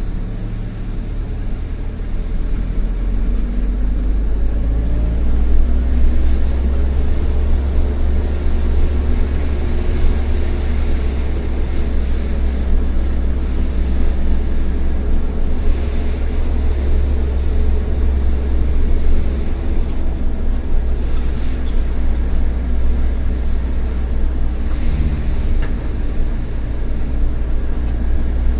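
Old bus's diesel engine running steadily under load, with a deep low drone and an engine note that slowly rises and falls with the revs; it gets louder about three seconds in.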